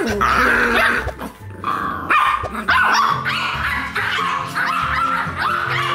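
Small dogs play-fighting, a Pomeranian among them, yapping in a quick run of short, high barks over light background music.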